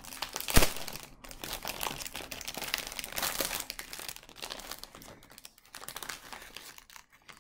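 Plastic wrapping of a convenience-store egg salad sandwich crinkling and crackling as it is opened by hand, with one sharp, loud crackle about half a second in, then thinning to sparser, quieter rustles toward the end.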